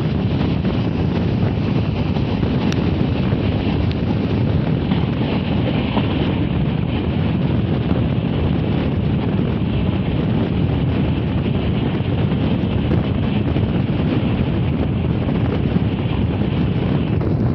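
Wind rushing over the microphone over the steady rumble of a passenger train running at speed, heard from on board.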